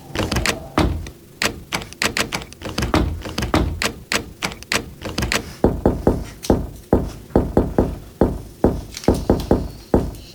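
Paper and cardboard being handled at close range: a rapid run of sharp taps and clicks that settles, about halfway through, into an even rhythm of knocks, about two to three a second.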